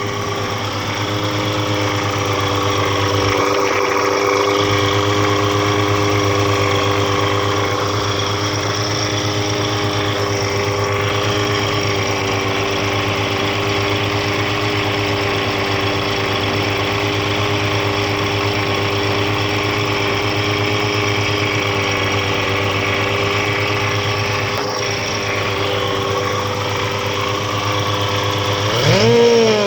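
Suzuki Vitara's 1.6-litre 16-valve G16B four-cylinder engine idling steadily, then revved up near the end.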